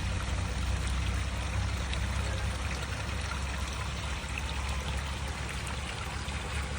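Water running steadily from a spout and pouring down, a continuous even rush.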